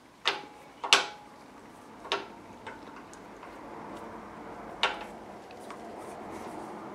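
Sharp metal clicks of the Axminster AT508WL lathe's headstock indexing pin and spindle being worked by hand, with faint rubbing between them. There are a handful of separate clicks, the loudest about a second in and again near five seconds, as the pin is pushed in and the spindle turned to find a hole; the pin does not feel as if it locates properly.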